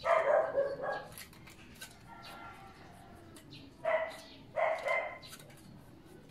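A dog barking: one bark at the start and two more about four and four and a half seconds in. Between the barks come light metallic clicks of hand tools on the motorcycle's valve adjusters.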